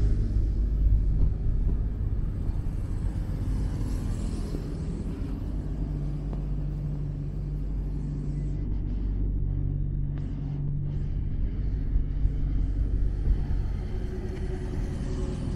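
Road traffic: motor vehicle engines running and passing, a steady low rumble that is a little louder near the start.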